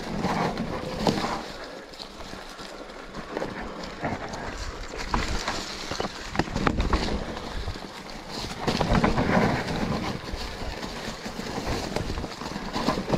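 Specialized Turbo Levo electric mountain bike rolling down a dry, leaf-strewn dirt trail: tyres crunching over leaves and dirt, with the bike clattering and knocking over bumps and wind buffeting the microphone. It gets louder and rougher about nine seconds in.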